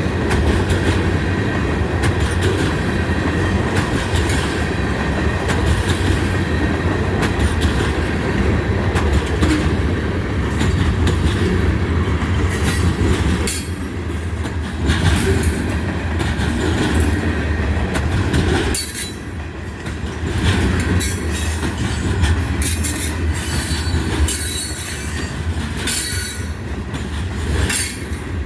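Freight train's cars rolling past in a steady low rumble, with wheels clattering over the rail joints and squealing at times.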